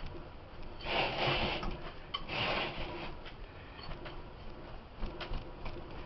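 A hand mixing and rubbing damp bath fizzy powder in a bowl: a scratchy rustling, with two louder swishes about one and two and a half seconds in and small ticks between.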